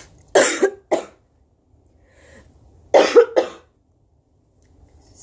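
A woman coughing from a cold: a pair of coughs about half a second in, then another pair about three seconds in.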